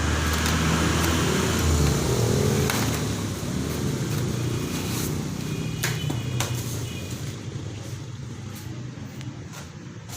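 A motor vehicle engine running, loudest in the first few seconds and then slowly fading, with a few sharp clicks or knocks in the middle.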